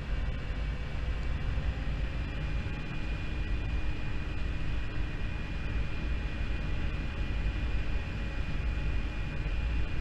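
Yamaha Zuma 50cc scooter running at a steady cruising speed, its engine giving a steady high whine, under a heavy rumble of wind on the microphone.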